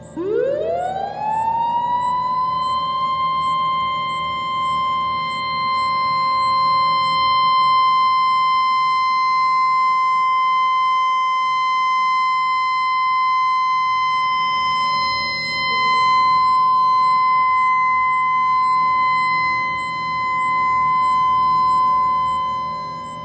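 Outdoor tornado warning siren winding up quickly to a single steady high tone, then holding it, swelling and fading in loudness every seven seconds or so.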